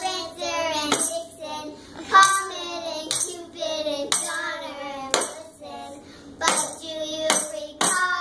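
Young girls singing with a tambourine and maracas, shaken and struck about once a second.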